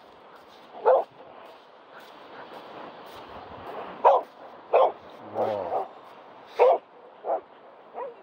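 A dog barking in short, sharp single barks, about seven in all, spaced irregularly, with one longer drawn-out whining call in the middle.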